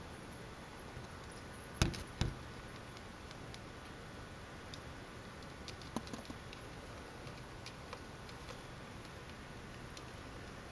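Two sharp knocks about two seconds in and a few faint ticks and clicks later, over a steady low hiss.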